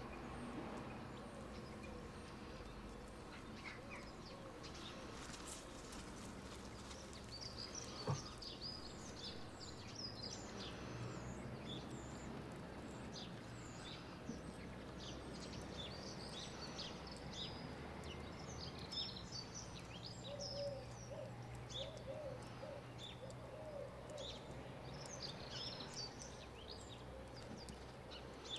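Small birds chirping and twittering, many short high notes, over a steady low outdoor rumble. A single sharp knock comes about eight seconds in.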